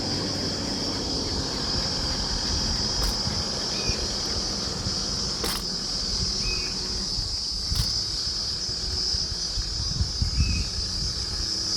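Insects (crickets or cicadas) buzzing in a steady, high, unbroken drone, over a low rumble.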